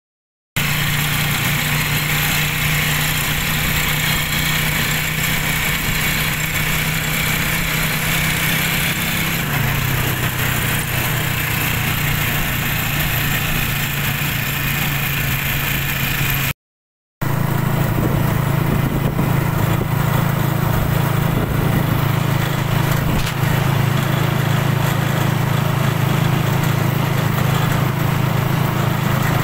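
Engine of a small open-sided passenger vehicle running steadily while under way, heard from inside the cab. Its note drops slightly about ten seconds in. The sound cuts out completely for about half a second around the middle.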